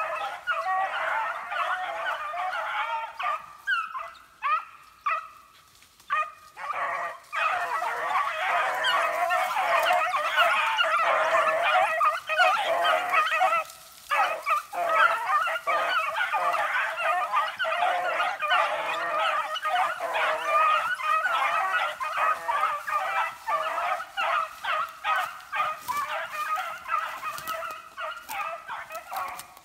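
A pack of beagles baying as they run a scent trail, many voices overlapping almost without a break. The calls thin out briefly about four to seven seconds in.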